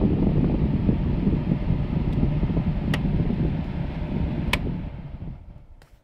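Haier window air conditioner running, its fan blowing with a steady low rush. Two sharp clicks come about three and four and a half seconds in, and the sound fades away in the last second.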